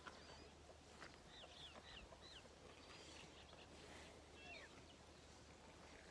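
Faint, short bird chirps, a quick run of them about a second in and another couple near the middle, over a low steady hum.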